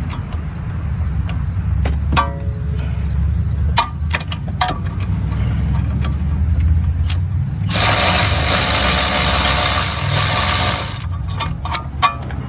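Cordless electric ratchet running for about three seconds, near the end, to undo a brake caliper bracket bolt, among scattered metallic clinks and knocks of socket and bolts.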